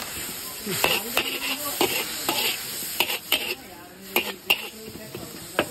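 Flat metal spatula scraping and clanking against a large metal wok as soya chunks and shredded vegetables are stir-fried, with sizzling underneath. Sharp clanks come about every half second, unevenly.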